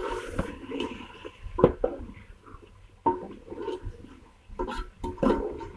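Metal spoon scraping and knocking against an aluminium pressure-cooker pot while stirring spiced chicken pieces in oil, in irregular strokes with one sharp knock a little over a second in.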